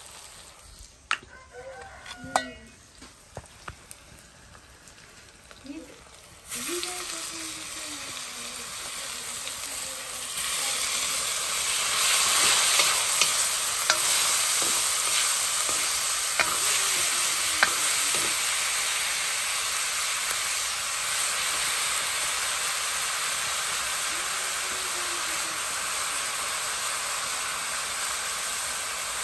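Food frying in hot oil in a cast-iron wok. The sizzle switches on suddenly about six seconds in, swells a few seconds later and then holds steady. A metal ladle stirs the pan and clinks against it now and then, and a few spoon taps come before the sizzle starts.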